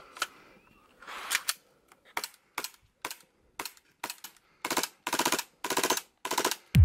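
Gas blowback airsoft pistol in an APS RONI carbine conversion kit firing: sharp single shots about half a second apart, then four short full-auto bursts. A deep low boom comes in at the very end.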